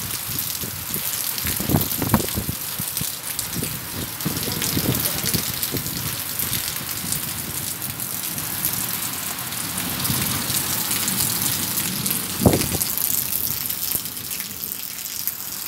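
Heavy rain falling steadily on brick paving and concrete as an even hiss. A few dull low thumps come through about two seconds in and again near the end.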